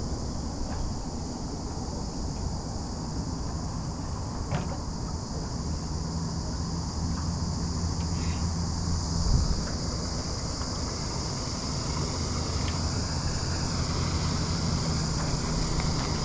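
Steady high-pitched insect drone, with wind buffeting the microphone and a low motor hum underneath that grows stronger about five seconds in.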